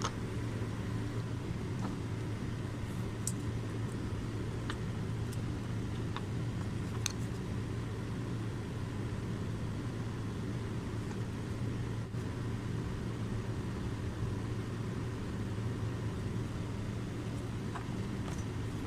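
Steady low background hum, with a few faint ticks scattered through it.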